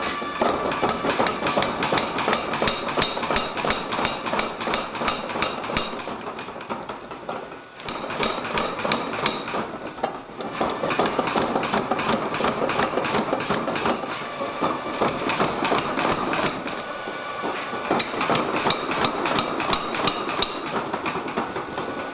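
500 lb Bradley power hammer pounding a hot steel swage block in a rapid, steady run of heavy blows, about four or five a second. The blows falter briefly twice about a third of the way through, then resume.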